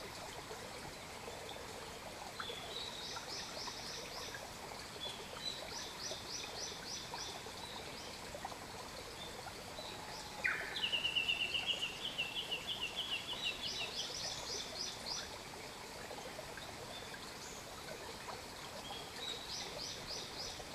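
Wild birds singing: repeated short series of quick high notes, with a louder, lower rapid trill about halfway through that lasts a few seconds, over a steady faint hiss.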